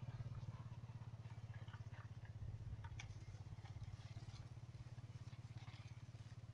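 A small engine running steadily in the background, a low hum with a fast even pulse, under light rustling and crackling of steps through grass.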